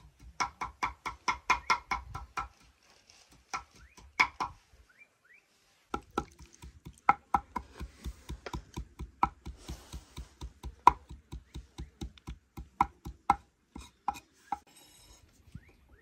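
Large curved cleaver-style knife chopping fresh green herbs on a wooden cutting board: rapid, even knocks of the blade on the board, about five a second, in two runs with a pause of a few seconds between them.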